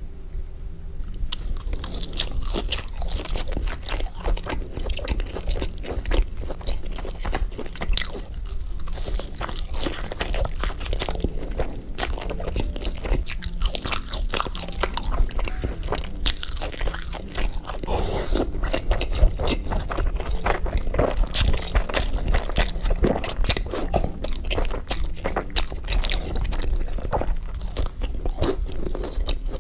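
Close-miked eating: crisp crunching bites and chewing in quick, irregular succession.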